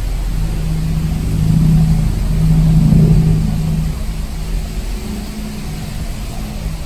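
An engine running with a steady low hum that swells louder from about one and a half to three and a half seconds in, then eases back.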